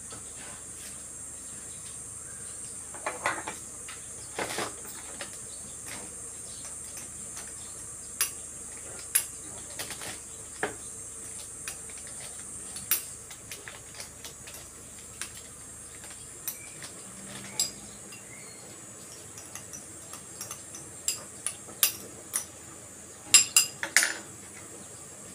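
Tomato sauce simmering in a steel wok on a gas burner: a steady high hiss with scattered small pops. A few louder clinks and knocks of utensils against pans come a few seconds in and again near the end.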